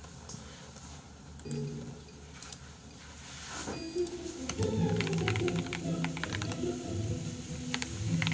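Computer keyboard being typed on: a quick, uneven run of key clicks that starts about three and a half seconds in.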